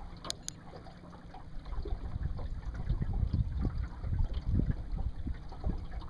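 Water lapping and sloshing against the side of a small fishing boat in an uneven low rumble, with two sharp clicks about half a second in.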